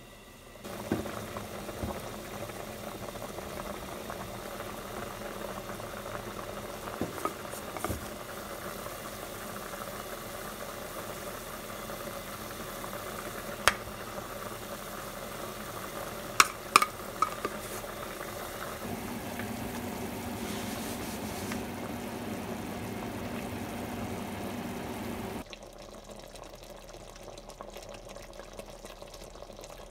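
A pot of curry with potatoes, carrots and pork boiling, with a few sharp clinks against the pot. The bubbling drops away to a quieter level near the end.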